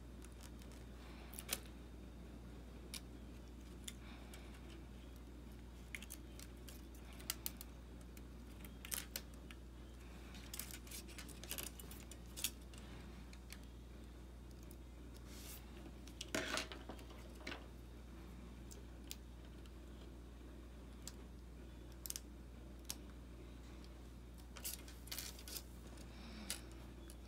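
Scattered small clicks and taps from handling the small metal parts of a disassembled iPhone 6s front screen assembly, with a short cluster of them about sixteen seconds in, over a steady low hum.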